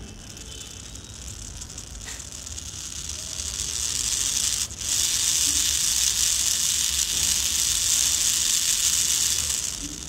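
Small brushed DC gear motor running under joystick speed control, its high whine getting louder as it speeds up over the first few seconds. It cuts out for a moment about halfway, then runs at full speed before winding down near the end.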